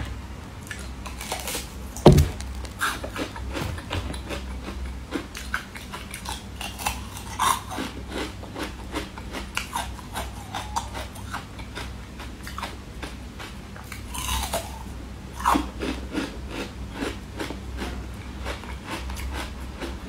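Close-up eating sounds: biting into and chewing a soft white ring-shaped treat, with wet mouth clicks and smacks. There is a heavy thump about two seconds in.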